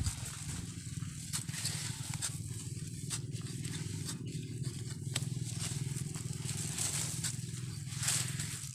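Scattered sharp clicks and scrapes of a long knife digging into dry soil to unearth sweet potatoes, over a steady low rumble.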